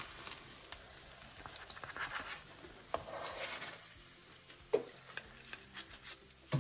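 A spatula scraping and tapping a non-stick frying pan as potato fritters are lifted out, over a faint sizzle from the still-hot pan. There are light clicks throughout and one sharper knock about two-thirds of the way through.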